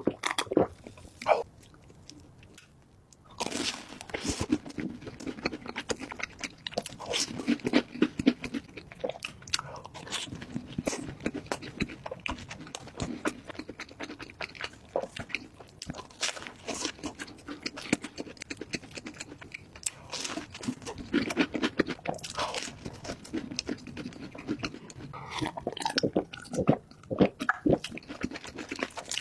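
Close-miked eating: a man biting and chewing a mouthful of food, a dense run of small crunches and mouth clicks and smacks. It pauses briefly about two seconds in, then carries on steadily.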